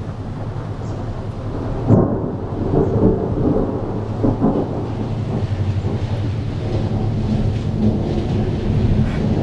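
Rolling thunder: a low rumble builds up, peaks sharply about two seconds in, then keeps rumbling in uneven waves.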